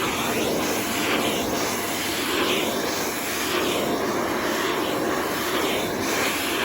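Von VAVC-16DMR bagless canister vacuum cleaner running steadily with a faint whine, its brush attachment working over fabric to suck up cat hair.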